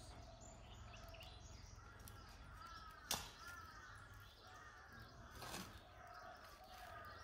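Faint outdoor ambience with birds calling over and over in short arched calls, and two sharp knocks, about three and five and a half seconds in.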